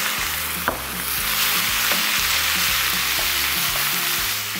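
Fettuccine with carrot, pepper and onion strips sizzling in hot oil in a frying pan as it is stir-fried, with background music underneath. A single sharp click a little under a second in.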